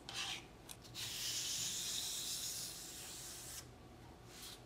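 Plaster filler being scraped and spread with a small palette knife. A brief scrape comes at the start, then a faint, dry scraping hiss lasts about two and a half seconds from about a second in.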